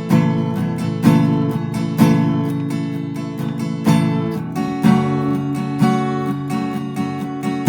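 Rogue RA-090 dreadnought acoustic guitar with its stock strings, strummed in a chord sequence: a strong strum about once a second, with lighter strokes between, moving to a new chord about halfway through.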